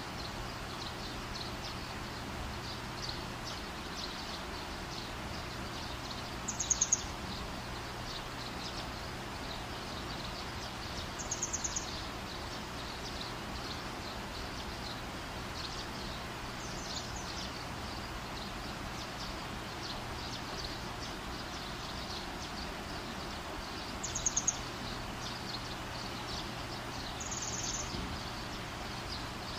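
Oil sizzling under a layered flatbread (sabaayad) frying in a nonstick pan: a steady soft hiss with fine crackling. Four brief high-pitched trills stand out over it, and they are the loudest sounds.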